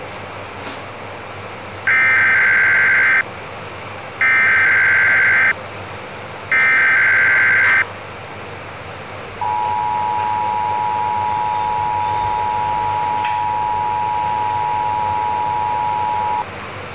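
Emergency Alert System header: three bursts of SAME digital data tones, each a little over a second long, then the two-tone EAS attention signal (853 and 960 Hz together) held steadily for about seven seconds, announcing a severe thunderstorm warning.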